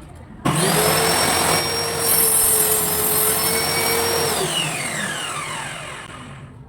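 An electric power tool's motor switches on suddenly with a loud, steady high whine. After about four seconds it is switched off, and the whine falls in pitch and fades as the motor spins down.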